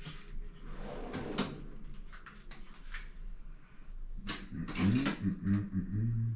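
Kitchen cutlery drawer pulled open and utensils clattering and knocking as someone rummages through it. A low voice comes in briefly near the end.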